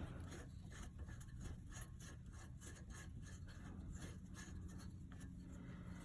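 Faint small clicks and scrapes of the rear brake caliper's bolts being threaded in by hand, metal rubbing on metal, over a steady low hum.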